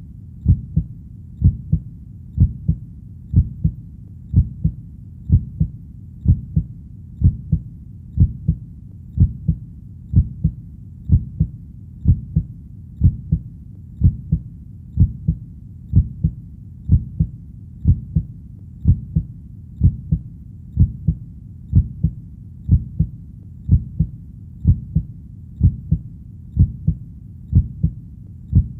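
Heartbeat sound: a steady lub-dub beating evenly at about one beat a second, low and deep, over a steady low background sound between beats.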